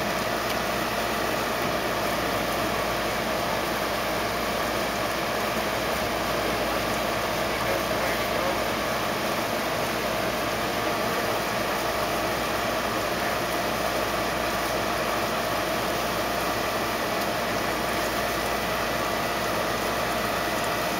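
A steady mechanical hum over an even hiss, holding the same pitch without change, like a machine running nearby.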